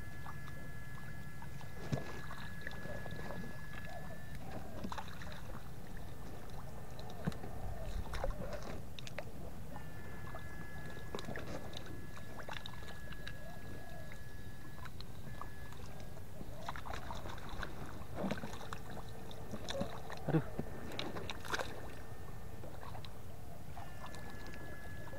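An electric fish-shocker whining at one steady high pitch, switched on and off in stretches of a few seconds, over sloshing water with scattered splashes and knocks.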